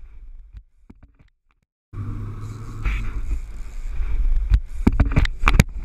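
Near silence for about two seconds, then a sudden start of a loud, steady low rumble from the boat's engine and wind on the microphone. From about halfway in come many sharp knocks and thumps.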